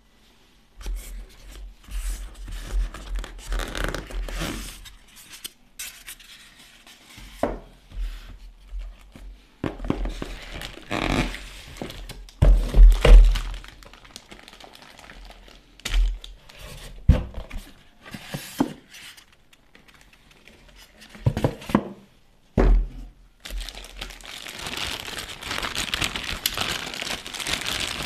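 Packaging being handled during an unboxing: cardboard box and foam insert shifted about, with scattered knocks and low thumps against the desk. From about 23 seconds in, the microphone's plastic bag crinkles steadily as it is unwrapped.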